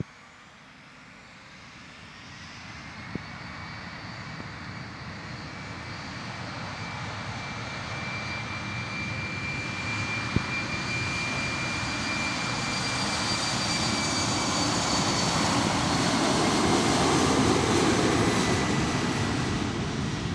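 An airliner's engines growing steadily louder as the plane approaches and passes, a broad rumble with a steady high-pitched whine, loudest near the end and starting to fade. There are a couple of single clicks along the way.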